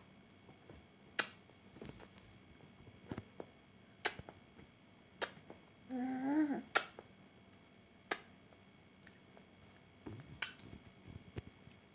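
Several sharp mouth clicks, a second or more apart, and a short hummed voice sound that rises and falls about six seconds in.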